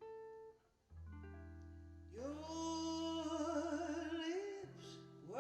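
A pop ballad played back through a small, inexpensive speaker: held accompaniment chords, then a female voice singing with vibrato from about two seconds in.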